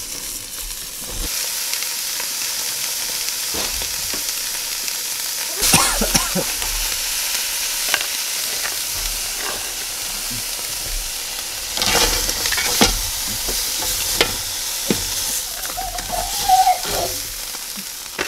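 Halved southern rock lobster basted in butter sauce sizzling on a hot barbecue grill plate: a steady frying hiss with scattered short knocks and scrapes.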